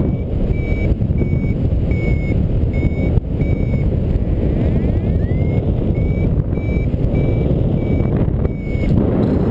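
Flymaster paragliding variometer giving its climb tone: short, steady high beeps a little under twice a second, signalling lift in a thermal. A brief rising chirp comes about halfway through, over loud wind rushing on the microphone.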